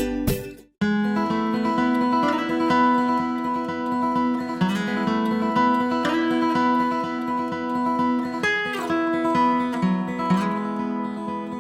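Background music of strummed and picked acoustic guitar, starting after a brief gap of silence just under a second in.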